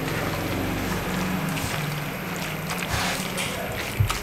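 A spatula stirring and turning macaroni in a non-stick wok, with faint scrapes against the pan, over a steady low hum.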